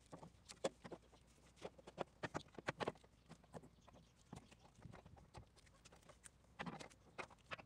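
Faint, irregular clicks and knocks of metal parts as the splined end of a new CV axle is slid and worked into the front wheel hub and steering knuckle by hand.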